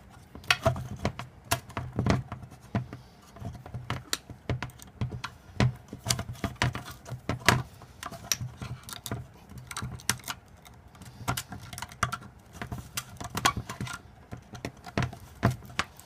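Irregular small clicks and taps of a motor's drive chain and its mounting parts being worked loose by hand, unhooking the chain from the sprocket teeth, over a low steady hum.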